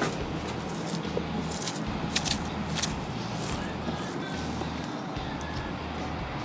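Styrofoam being scraped and broken away from a cured concrete cap with a hammer: scattered scratchy, crunchy crackles over a steady low background hum.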